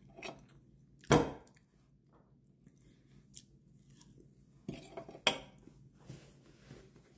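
Cutlery clinking against a plate during a meal: a sharp clink about a second in, two more close together around five seconds in, and softer small scrapes and handling noises between.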